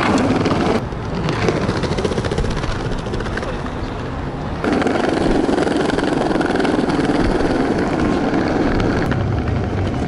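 Small plastic cruiser skateboard rolling over stone paving slabs: a steady rumble of the wheels with many small clicks at the slab joints. It drops about a second in and picks up again around five seconds.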